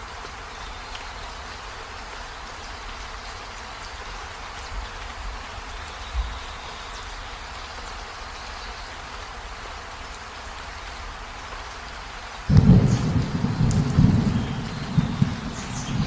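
Steady rain falling, then a sudden loud roll of thunder about three quarters of the way through that rumbles on with uneven peaks.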